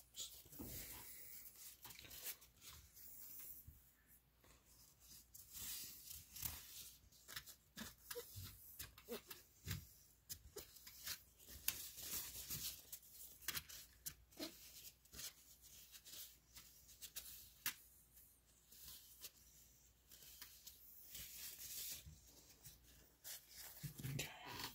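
Faint, scattered rustling and small clicks of objects being handled, irregular and without any steady rhythm.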